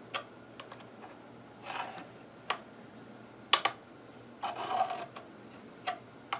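A metal fret-levelling tool sliding and scraping along a guitar's frets, with several sharp clicks as it is set down and rocked on them, checking the frets for a high one.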